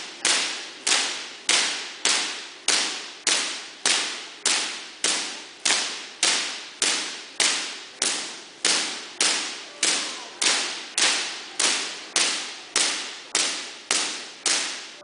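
Rapid, evenly spaced cracks of artificial lightning: high-voltage sparks from a giant Van de Graaff generator striking a metal birdcage with a person standing safely inside. About 25 cracks fall roughly 0.6 seconds apart, and each sharp snap dies away over about half a second.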